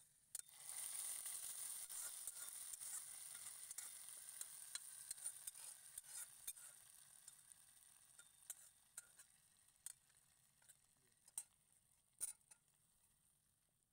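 Hot oil tempering with dried red chillies and whole spices poured onto a pot of haleem, sizzling. The hiss starts suddenly about half a second in and slowly dies away, with crackling pops that grow sparser toward the end.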